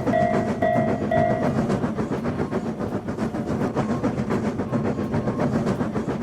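Railroad crossing warning bell ringing about twice a second, stopping about a second and a half in. Under it a train runs past with a fast, steady clickety-clack of wheels over the rail joints.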